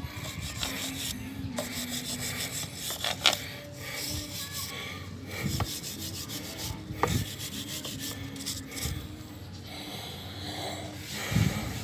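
Steel wire brush scrubbing a rusty motorcycle drive chain to take the rust off, in irregular scraping strokes with a few sharper ones.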